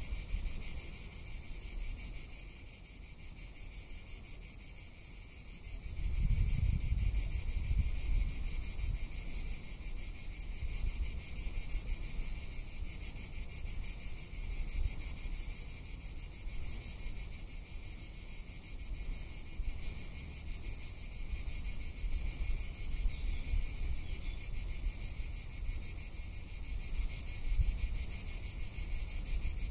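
Cicadas singing: a steady, continuous high-pitched buzz with no breaks. Gusts of wind rumble on the microphone, strongest about six seconds in.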